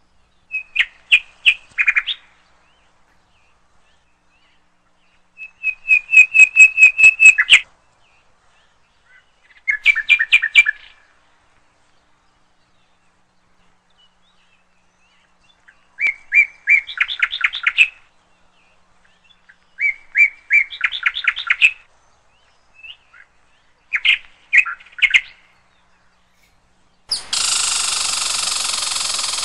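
Indian palm squirrel calling: bursts of rapid, evenly spaced high chirps, about eight a second, each burst lasting one to two seconds and repeating every few seconds, six times in all. Near the end a steady loud noise cuts in abruptly.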